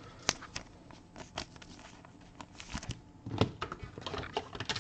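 Trading cards being handled: soft clicks and papery rustling as cards are slid and flipped through, busier in the second half.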